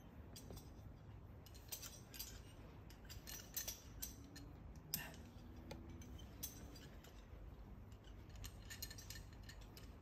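Climbing gear clinking faintly: aluminium carabiners and quickdraws chink and click as the lead climber pulls up rope and clips it into a quickdraw. The clicks come in an irregular run, thickest in the middle, with one sharper click about halfway through.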